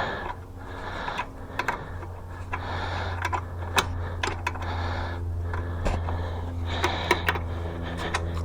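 Scattered, irregular clicks and light metallic taps of hand tools being worked on a small dirt bike's chain and wheel hardware, over a steady low hum.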